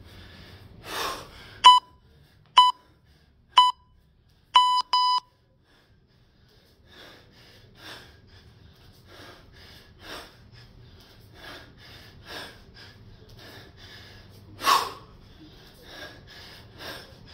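Electronic beeps: three short ones about a second apart, then a longer one, like a workout timer's countdown. Around them a man breathes hard and rhythmically, a sharp exhale with each 24 kg kettlebell snatch.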